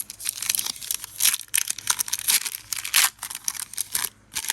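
Foil wrapper of a Pokémon trading card booster pack being torn open and crinkled: a quick run of crackling rustles that dies down about four seconds in.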